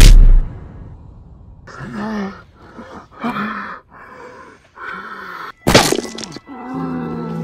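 A voice groaning in several short moans, framed by a loud low boom at the very start and a sharp crack about five and a half seconds in. Near the end a low steady music drone comes in.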